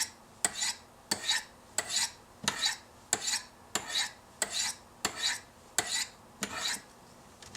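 Steel knife blade being drawn down the ceramic stones of a Spyderco Sharpmaker in steady alternating strokes, each a short scraping sweep, about one every two-thirds of a second. The strokes stop shortly before the end.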